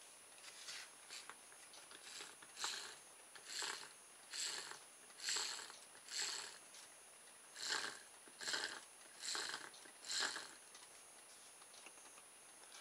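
Hands handling a small plastic electric motor kit: a run of about a dozen short rasping scrapes, roughly one a second, that stop about ten seconds in.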